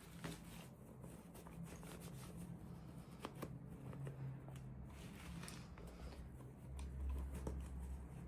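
Faint rustling and small clicks of hands handling toy packaging during an unboxing, over a low steady hum that gets louder near the end.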